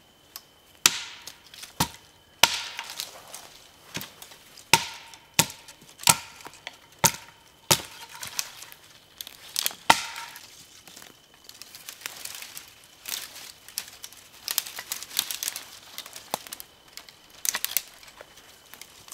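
Hatchet strikes knocking dry dead branches off conifer trunks: sharp cracks every second or so, some with a brief ring. In the second half comes denser crackling and snapping of dry sticks being broken and gathered.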